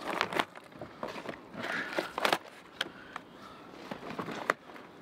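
Irregular clicks, knocks and rustling of handling noise, with sharper knocks about two seconds in and again near the end.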